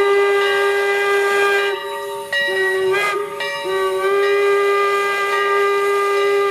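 Steam locomotive whistle on the Leviathan, a 4-4-0 steam engine, sounding long steady blasts with two short breaks a couple of seconds apart.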